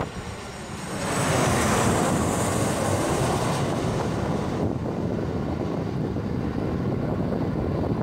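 Boeing 737 jet airliner's CFM56 turbofan engines passing low overhead on final approach: a loud, steady rush of jet noise that swells about a second in. The high hiss drops away abruptly about halfway through, leaving a lower rumble.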